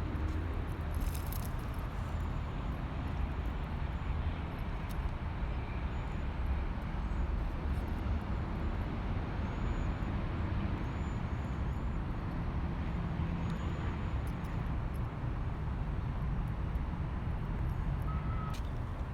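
Steady low rumble of city traffic, with a few faint high chirps and a couple of light clicks.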